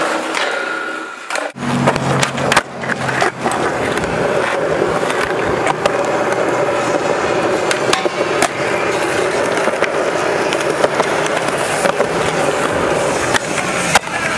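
Skateboard wheels rolling on smooth concrete, with repeated sharp clacks and slaps from board pops, landings and tricks on the park's obstacles.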